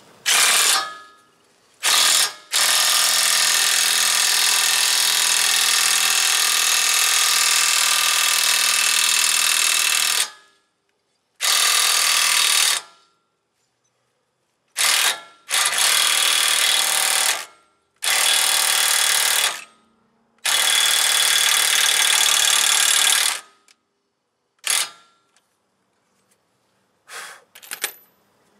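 Impact wrench hammering in repeated runs: one long run of about eight seconds, then several shorter runs and brief blips. It is driving a lug nut down a new wheel stud to draw the stud's knurled shoulder into the hub, hard enough to nearly strip the new stud.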